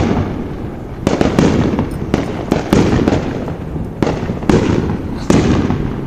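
Fireworks going off in quick succession: about a dozen sharp bangs at uneven intervals, each trailing off in a fading echo.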